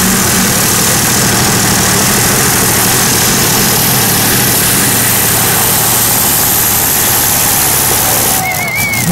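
Modified pulling tractor's supercharged engine at full power while pulling the brake sled, a loud, steady engine noise. About eight seconds in the engine noise drops away and a wavering high whistle sounds.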